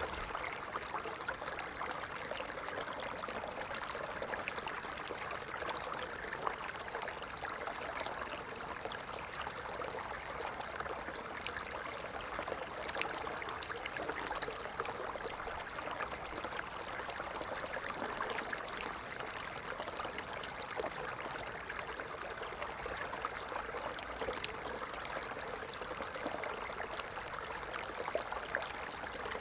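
A stream running steadily, the even rush of flowing water.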